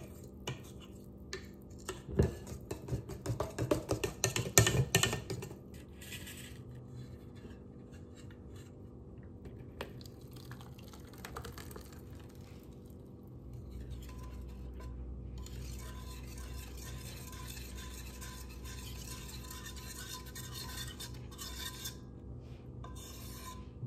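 Wire whisk clicking and scraping rapidly against a stainless steel mixing bowl as a thick mixture is whisked, for about the first five seconds. After that come quieter scrapes of the thick mixture being poured from the bowl, with a faint steady low hum from about halfway through.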